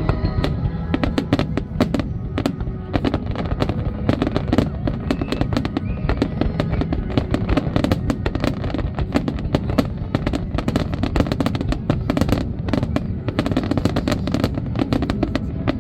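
Fireworks display going off in rapid succession: many sharp bangs and crackles, dense through the whole stretch, over music playing underneath.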